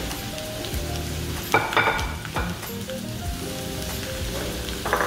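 Pork belly sizzling on a hot grill pan over a tabletop gas burner, a steady crackling hiss, with background music playing a simple melody. A brief clatter sounds about a second and a half in.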